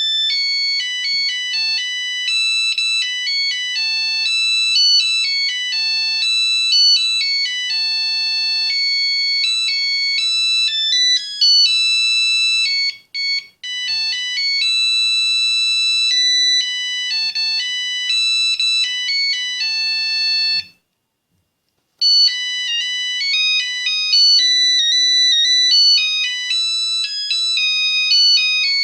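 Nokia 8110 mobile phone playing ringtones: quick, high-pitched beeping melodies, one note at a time. One tune stops about 21 seconds in, and after about a second of silence another begins.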